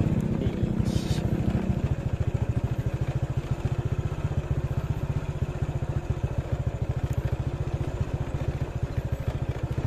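Motorcycle engine idling or running steadily at low speed, an even, rapid putter.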